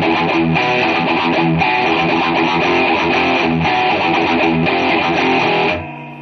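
Intro music: a guitar-led track with a steady beat, fading out near the end.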